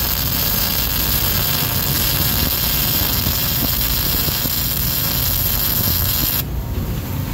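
Electric welding arc on steel, running steadily while a weld pass is laid, then cutting off suddenly about six and a half seconds in. A low steady rumble continues underneath and after it.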